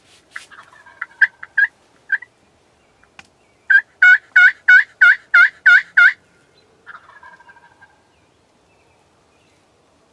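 Wild turkey calling: a few short, scattered notes, then a loud, evenly spaced run of about eight yelps at roughly three a second, and a softer, rougher call about a second long just after.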